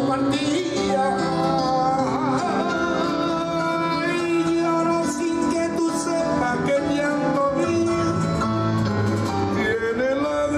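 Background music: a song with a singing voice over plucked guitar, playing steadily.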